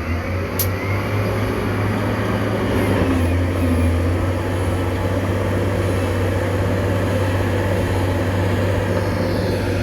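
Heavy diesel engine of earthmoving equipment running steadily with a deep low hum, with a short sharp click about half a second in.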